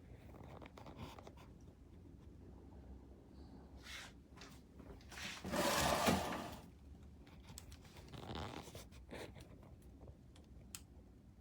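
Window air conditioner running with a faint steady hum, under scattered scraping and rustling noises. About halfway through comes a louder breathy rush lasting about a second, and a smaller one follows a little later.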